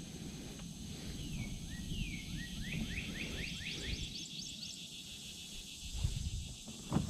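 A songbird singing: a couple of falling slurred notes, then a quick run of about eight rising notes. Under it a low rumble, with two dull knocks near the end.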